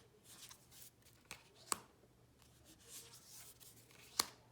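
Tarot cards being handled one by one: soft sliding rustles with a few sharp card snaps, the loudest near the end.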